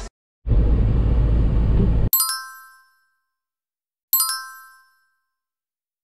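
A loud, bass-heavy burst of noise lasting about a second and a half, then two bright chime dings about two seconds apart, each ringing out and fading in under a second.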